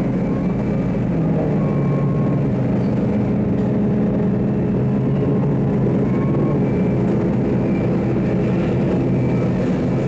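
Loud, steady drone of heavy steelworks plant in an electric arc furnace melting shop: a low hum of several pitches that shifts about a second in, with faint thin whines above it.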